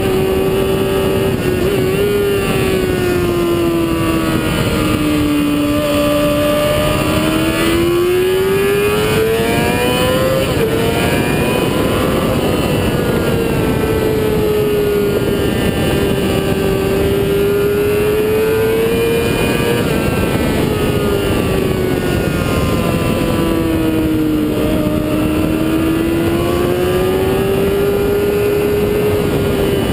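Motorcycle engine running hard on a track lap, its pitch sinking and climbing smoothly as the throttle comes off and back on through the corners, dipping twice. A dense rush of wind noise runs under it.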